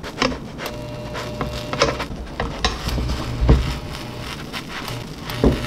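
Pancake batter sizzling in an oiled non-stick frying pan, with several sharp knocks and scrapes of a plastic spatula against the pan, loudest about three and a half and five and a half seconds in. A low electric hum from the hob comes and goes beneath.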